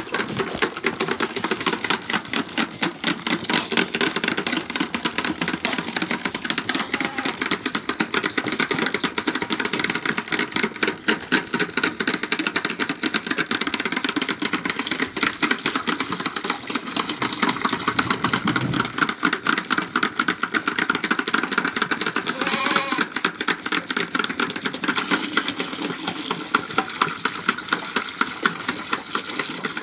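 Several lambs sucking milk from the rubber teats of a plastic bucket feeder: a fast, dense, continuous run of wet sucking clicks.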